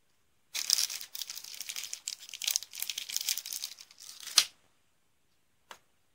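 A small clear plastic parts bag crinkling and rustling as it is handled and pulled open, for about four seconds, ending with a sharper crackle. About a second later comes a single light click.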